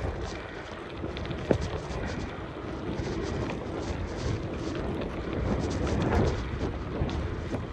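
Bicycle being ridden: wind rumbling on the microphone and tyre noise, with frequent rattling clicks and one sharp knock about one and a half seconds in.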